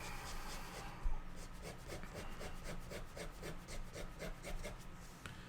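Pencil shading on paper: quick back-and-forth strokes scratching at about four to five a second, with a light knock about a second in.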